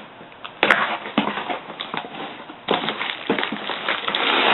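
Packaging of a shipped laptop screen being opened and handled: a sharp knock under a second in, then dense rustling and crinkling of the box and its wrapping.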